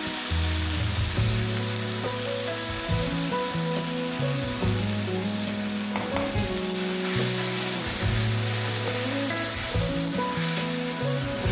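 Small fish frying in hot oil in a kadai, a steady sizzle, with a spatula stirring and scraping them in the pan. Background music plays underneath.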